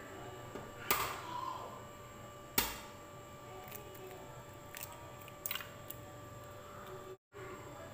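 An egg knocked against the rim of a blender jar to crack it: two sharp knocks, the second the louder, then a few lighter clicks as the shell is handled over the jar.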